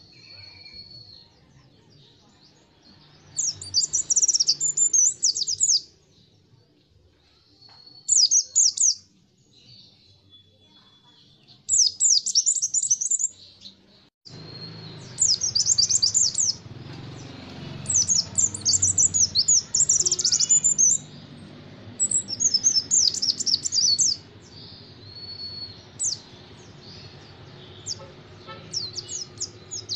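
White-eye (pleci) singing in repeated bursts of very fast, high chirping notes. Each burst lasts a second or two, with pauses between and a few drawn-out single whistles in the gaps. A low steady background hum comes in about halfway through.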